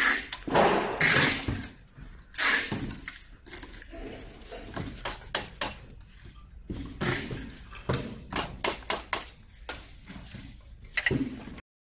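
Clinks, knocks and clatter of steel folding-wagon frames being handled, many sharp strokes close together in the second half, with louder bursts of noise in the first three seconds.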